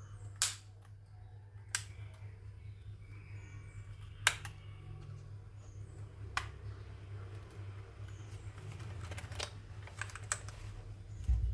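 Mechanical keyboard with Gateron Brown switches being handled, giving a handful of separate sharp clicks at irregular intervals rather than steady typing, over a steady low hum.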